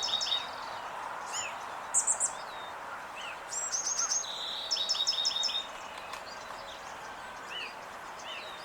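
Songbirds singing: one bird repeats a phrase of a held high whistle followed by a quick run of falling notes, heard twice, with short scattered chirps between. A steady background hiss of outdoor noise runs underneath.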